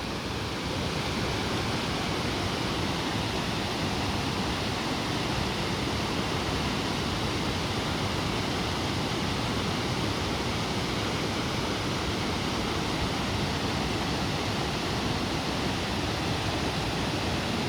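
Torc Waterfall rushing: a steady, unbroken roar of falling water.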